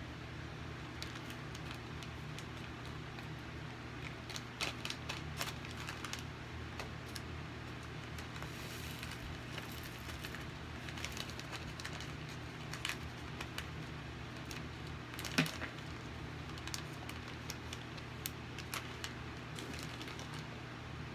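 Loose plastic rhinestones clicking and rattling as they are handled and poured between a tray and a plastic bag, in scattered bursts with one sharp click about three quarters of the way through. A steady low hum runs underneath.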